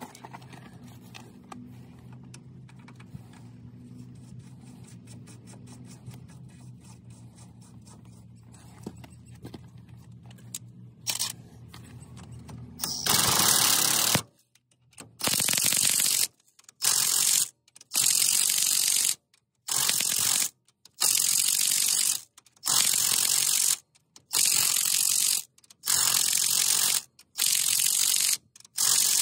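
A ratchet turning the nut on the threaded rod of a homemade wheel-hub puller, working in about eleven separate bursts of about a second each from about halfway through, as the hub is drawn out of the steering knuckle. A low steady hum runs beneath the first half.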